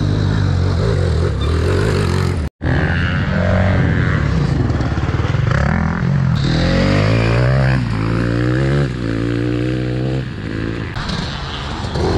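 Off-road motorcycle engines: a home-built Norton enduro bike pulling up a dirt climb, then, after an abrupt cut about two and a half seconds in, a dirt bike revving up and down repeatedly as it rides the course.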